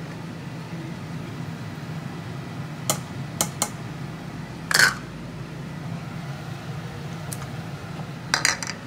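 Kitchenware clinking: small bowls knocking against a stainless steel soup pot and the countertop as ingredients are tipped in. There are a few sharp knocks, a louder ringing clink about five seconds in, and a quick clatter near the end, all over a steady low hum.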